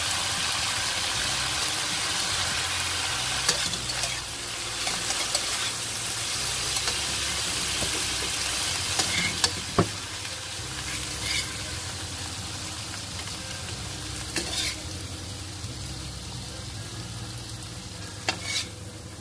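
Carrots, long beans and peppers sizzling in hot oil in a wok while a metal spatula stirs and scrapes them. A few sharp clicks of the spatula against the pan come through, and the sizzle eases a little in the second half.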